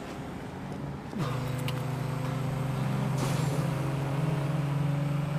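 Road traffic noise, then, from about a second in, a car engine's steady hum heard inside the cabin.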